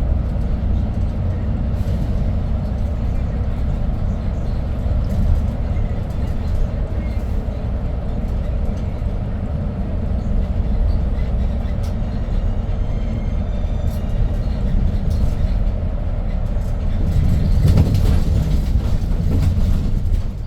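Cabin sound of a 2022 Hyundai New Super Aerocity city bus under way: its C6AF CNG engine and the rolling of the bus make a steady low rumble. It grows louder for a few seconds near the end, with a few light clicks and rattles along the way.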